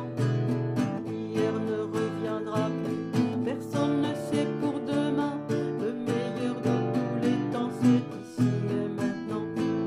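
Nylon-string acoustic guitar played in a steady strummed and plucked rhythm.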